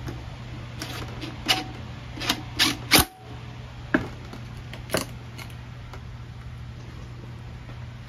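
Sharp metallic clicks and clinks of hand tools and driver bits being handled on a wooden work table, a cordless impact driver's bit among them. About ten separate knocks come between about one and five and a half seconds in, over a steady low hum. The driver's motor is not run.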